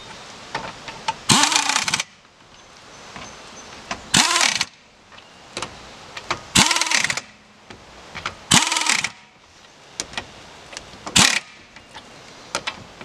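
Pneumatic impact wrench run in five short bursts a couple of seconds apart, lightly snugging a wheel's five lug nuts; each burst's whine rises and falls away as the trigger is pulled and let go, the last one shortest.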